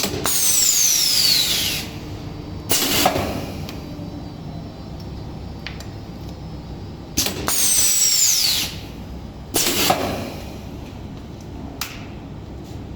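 Semi-automatic bag-on-valve aerosol filling machine working through two cycles. Each cycle is a sharp click, then about a second and a half of hissing with a whistle falling in pitch, then a short burst of air release.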